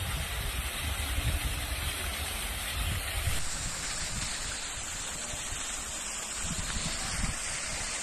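Small waterfall splashing steadily into a pond, with wind rumbling on the microphone during the first few seconds.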